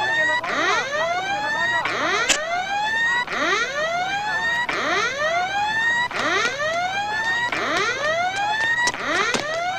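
Whooping alarm siren: a steady run of rising sweeps, about one a second, each climbing from low to high, cutting off and starting again.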